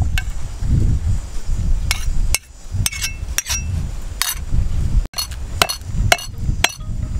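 Steel cleaver chopping and scraping on a wooden chopping block, sharp knocks, with a few short ringing clinks of metal against a ceramic bowl near the middle. About five seconds in comes a quick run of about five chops, roughly three a second.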